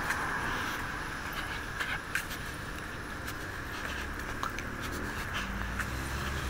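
Urban street ambience: steady traffic noise with scattered light clicks and taps. A low vehicle engine hum grows louder near the end.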